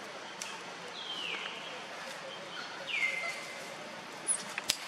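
Two high whistled animal calls, each sliding down in pitch and then levelling off, over a steady outdoor background hiss, with a few sharp clicks near the end.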